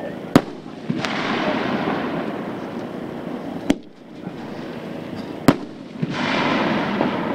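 Pyro Demon 'Mind Bender', a 2-inch 1.4G consumer super finale cake, firing: three sharp shot reports, with a loud spread of hissing breaks starting about a second in and again near the end.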